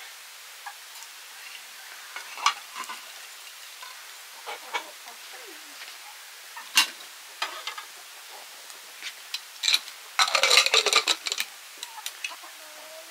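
Scattered clicks and scrapes of a utensil against a pot, as in stirring, with a dense run of rapid clatter about ten seconds in.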